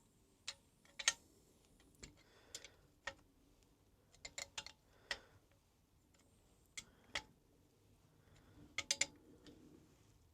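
Spanners and metal parts clinking as nuts are done up on a motorcycle swing arm's torque arm: sharp metallic clicks at irregular intervals, a few in quick runs.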